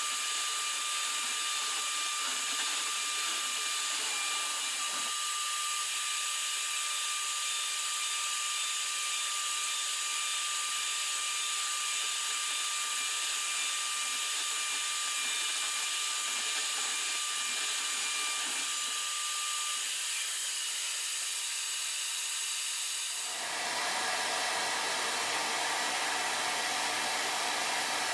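CNC router spindle running and cutting acrylic: a steady high-pitched whine over hiss. About twenty-three seconds in the sound changes abruptly and becomes fuller, with a low rumble added.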